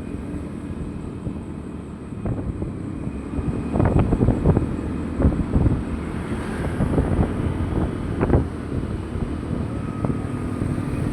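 Wind buffeting the microphone over a low, uneven vehicle rumble, with a few short knocks.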